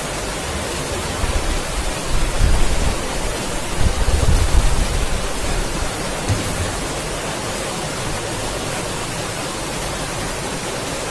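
Steady hiss of background noise, with low rumbling swells in the first half.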